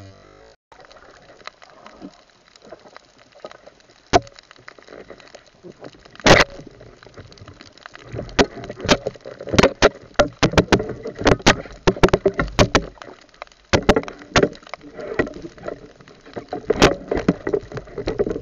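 Irregular underwater knocks and clicks, a few scattered ones at first and then coming thick and fast about eight seconds in, over a low wash of water noise: the spear and camera housing being handled as a speared fish is brought in.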